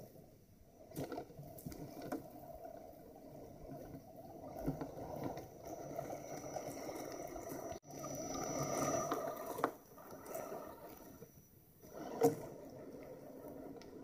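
1/10-scale Axial SCX10 RC crawler driving over dry leaves and twigs: the small electric drivetrain runs with a thin steady whine while the tyres crunch and scrape through the leaf litter, with scattered clicks and snaps and one sharp knock near the end.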